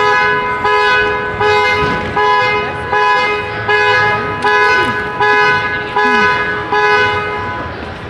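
Two-tone car horn honking in a steady series of short blasts, about a dozen, roughly one every 0.7 seconds, stopping shortly before the end. The regular on-off rhythm is the pattern of a car alarm or key-fob panic alarm sounding the horn.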